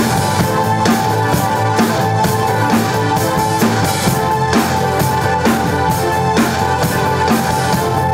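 Ludwig drum kit played along to a rock song: a steady beat of kick drum, snare and cymbals over the song's sustained chords.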